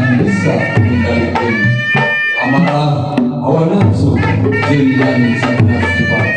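Sundanese gamelan ensemble playing: hand-drum (kendang) strokes over ringing struck bronze metallophones.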